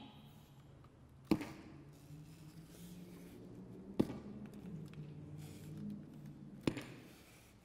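Three sharp clicks, spaced a little under three seconds apart, over a faint low electrical hum from an amplified electronic sound installation as its wiring is handled.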